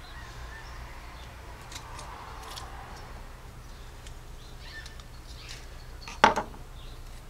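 Faint small clicks and scrapes of a steel pick working rubber O-rings off the oil filter adapter's metal plunger, with one sharper knock about six seconds in.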